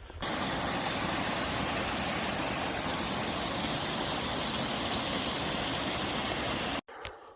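Steady rush of a mountain stream's flowing water, an even hiss with no rhythm, which starts and cuts off suddenly.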